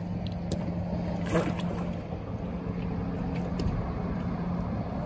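Boat motor idling steadily, a low even hum, with a few small splashes of water.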